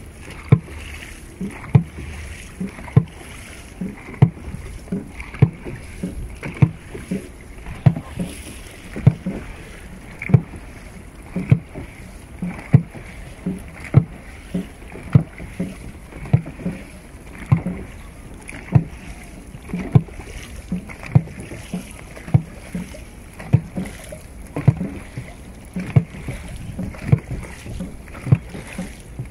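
Dragon boat drum beating a steady stroke rhythm, sharp low thumps about once a second, over the splash of paddles dipping and water rushing along the hull.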